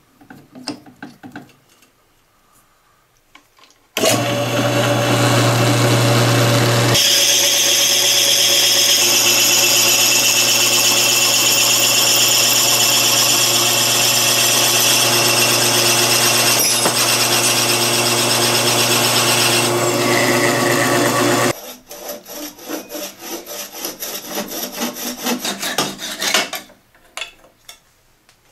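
Drill press boring a deep hole lengthwise into a wooden blank with a long twist drill bit: a few clicks from the chuck first, then the motor starts suddenly about four seconds in and runs with a dense cutting sound as the bit chews into the wood, stopping abruptly a few seconds before the end. A run of short knocks and scrapes follows.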